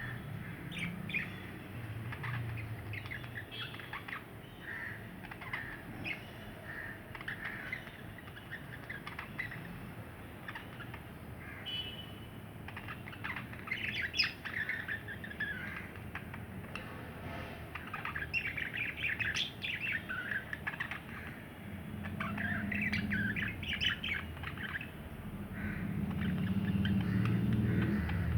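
Two budgerigars chattering and warbling: a continuous stream of short chirps and squawks, busiest in the middle. A low hum rises underneath in the last several seconds.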